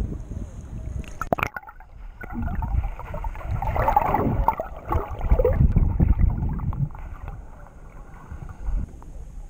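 Muffled underwater sound of water gurgling and sloshing around a submerged action camera, with a couple of sharp knocks about a second and a half in and louder gurgling through the middle.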